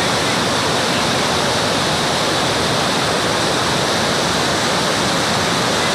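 Flash-flooded mountain stream, swollen by heavy rain, rushing and churning over rocks in a loud, steady wash of noise.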